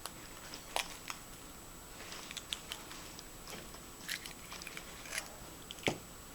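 Irregular small clicks and crackles of hands opening a Kinder Applaydu surprise egg, its plastic toy capsule and wrapping. The loudest snap comes near the end.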